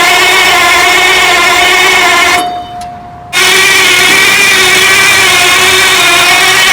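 Heavy generator engine being cranked by its starter without firing: a loud, steady mechanical whine that stops about two and a half seconds in. About a second later cranking starts again and runs on.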